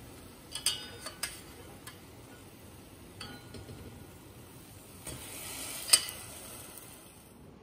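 Steel ladle clinking against a stainless steel pot while it is moved through sugar syrup and kala jamuns: a few scattered sharp clinks, a brief swish, then the loudest clink about six seconds in.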